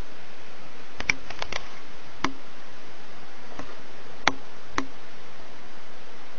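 Steady hiss with about eight sharp, irregular clicks: a quick cluster of four about a second in, then single clicks spread over the next few seconds.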